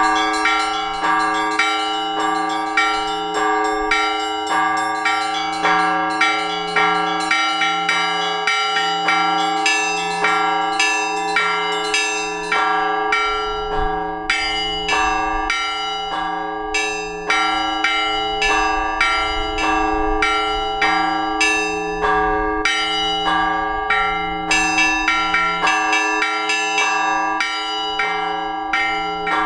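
Orthodox church bells ringing together in a peal: smaller bells struck quickly in a repeating rhythm over the long-sustained hum of larger bells.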